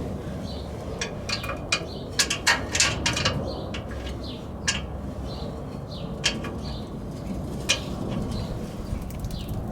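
Irregular sharp metallic clicks and clinks as a magnet pickup tool works at a loose bolt inside a pickup truck's steel frame rail, with birds chirping in the background.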